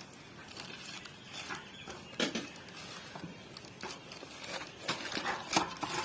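Irregular rubbing, rustling and sharp clicks and taps from hands working a new bicycle tyre onto the wheel rim, with the sharpest click about two seconds in and another near the end.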